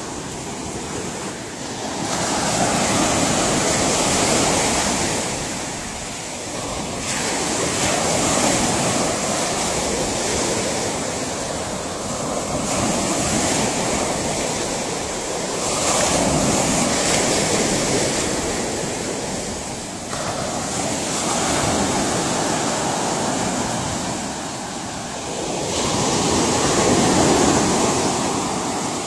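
Ocean surf: waves breaking and washing up the shore, the rushing noise swelling and easing every four to five seconds.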